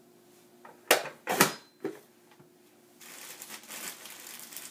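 Vidalia Chop Wizard hand chopper being pushed down through a potato: two loud crunching clacks about a second in, then a smaller one. From about three seconds in, a plastic bag of potatoes rustles and crinkles steadily.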